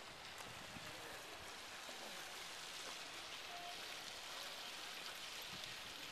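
Steady splashing of fountain water in a garden pool, with faint voices in the background.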